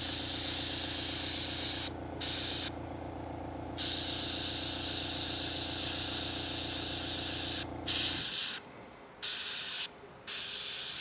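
Airbrush spraying in several bursts of hiss with short pauses between trigger pulls, the longest burst about four seconds. A steady low hum runs underneath and cuts off suddenly about eight seconds in.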